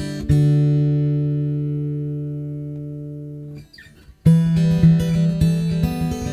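Background acoustic guitar music. A chord rings and slowly fades over about three seconds, there is a brief pause, then the playing resumes with new notes.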